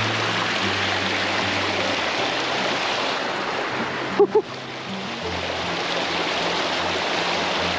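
Rushing river rapids, a steady roar of water. About four seconds in, two short pitched blips briefly stand out over it.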